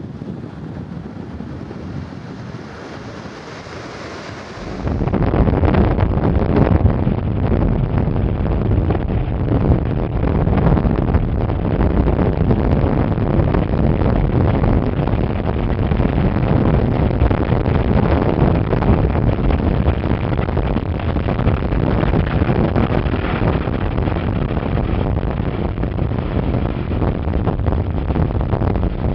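Wind buffeting the microphone: a rushing noise that turns much louder and more rumbling about four and a half seconds in and stays that way.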